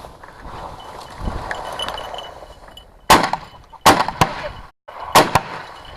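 Shotguns firing at a flushing covey of sharp-tailed grouse: a quick string of sharp shots starting about three seconds in, the three loudest spread over about two seconds, with lighter shots between them.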